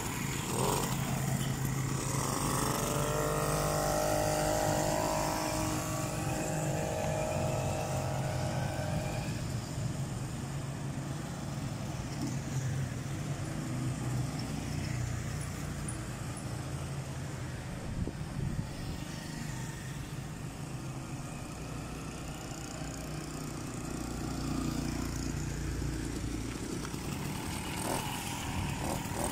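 80cc two-stroke motorized-bicycle kit engine revving up as the bike pulls away, its pitch rising over the first few seconds and then holding, before it fades into general road traffic noise. The engine comes closer again near the end.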